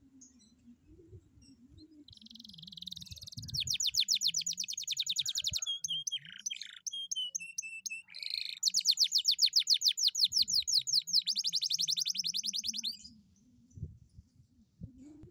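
Domestic canary singing: a buzzy opening, then a long rapid trill of quickly repeated high notes, a short passage of lower slurred notes, and a second long fast trill that stops about two seconds before the end.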